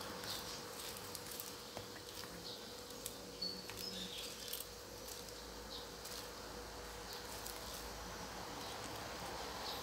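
Gas stove burner hissing steadily under a wok of water that is heating for blanching vegetables, with a faint steady hum and a few light ticks.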